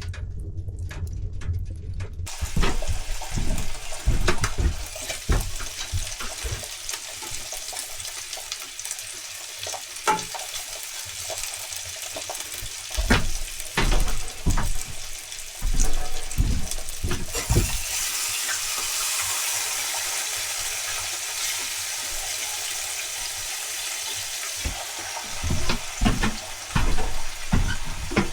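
Food sizzling in a frying pan on a stove, with scattered knocks and scrapes of a utensil against the pan. The sizzle grows stronger for several seconds in the second half.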